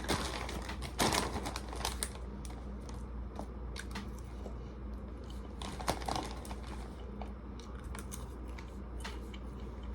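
Person chewing popcorn: scattered crunches and crackles, with a denser burst about a second in.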